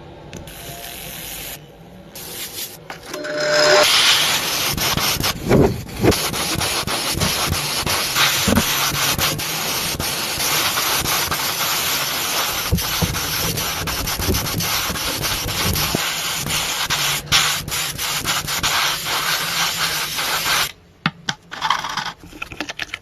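Sanding: a steady, rasping rub of abrasive on a surface that starts a few seconds in, with a few louder strokes along the way, and cuts off abruptly near the end.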